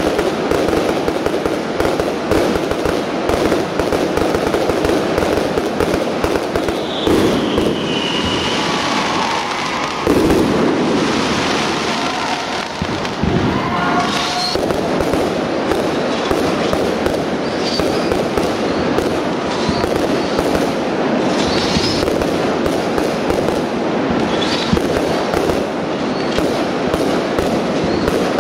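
Professional display fireworks firing in a continuous barrage: rapid bangs, crackling and shell bursts with no let-up. Short whistles cut through now and then, one falling in pitch about a quarter of the way in.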